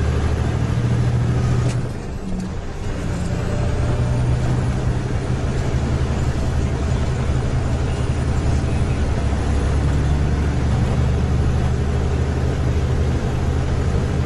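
Diesel engine of a tanker truck running steadily, heard from inside the cab. About two seconds in there is a sharp click and the engine sound briefly drops before picking up again.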